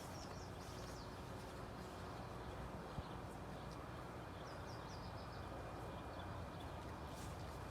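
A 52-inch Harbor Breeze Springfield ceiling fan running with a steady hum and whoosh, while small birds chirp briefly twice in the background.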